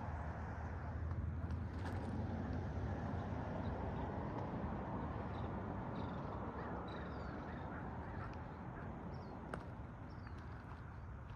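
Low, steady rumble of a diesel freight train still far off and approaching, with small birds chirping now and then over it.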